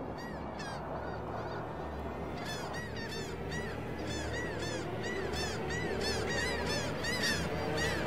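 A flock of geese honking: a few scattered calls at first, then many short overlapping honks from about two and a half seconds in. A low steady rumble runs underneath.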